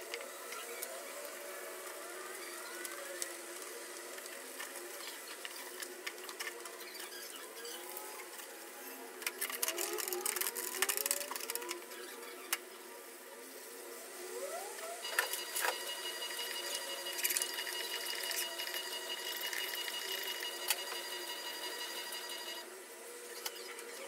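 A sponge scrubbing and squeaking against the plastic walls and shelf of a refrigerator's freezer compartment, with a burst of harder scrubbing and clatter around ten seconds in. In the second half a steady, high electronic tone sounds for several seconds, then stops shortly before the end.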